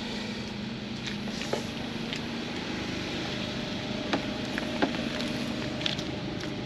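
Portable generator running steadily: an even engine hum with a few light clicks.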